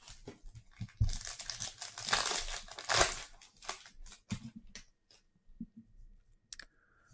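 A foil trading-card pack wrapper being torn open and crinkled: a dense crackle for about two seconds with a sharp tear near its end, then scattered clicks and rustles as the cards are handled.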